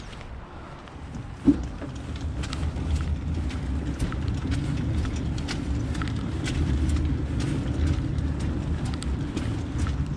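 A heavy washing machine being moved: one sharp thump about a second and a half in, then a steady low rumble with many small rattling clicks as it is shifted along the ground.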